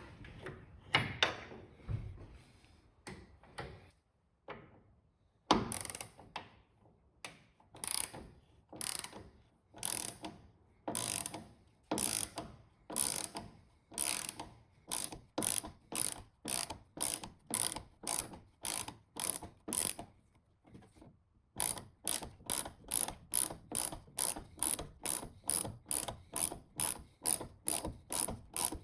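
Hand ratchet wrench clicking as a bolt is turned, one stroke of clicks about every second. After a short pause it picks up to a faster run of about two or three strokes a second.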